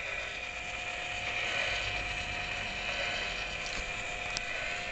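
Small geared electric motors on a radio-control model warship turning its radar aerials: a steady mechanical whir, with one sharp click near the end.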